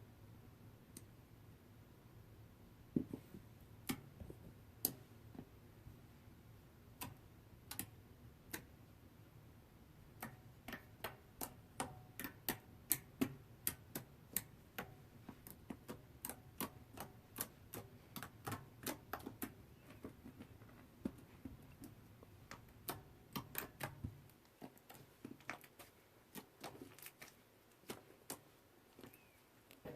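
Fluffy slime being worked by hand, giving sharp crackles and pops as trapped air bubbles burst: a few scattered pops at first, coming thick and fast through the middle, then thinning out again.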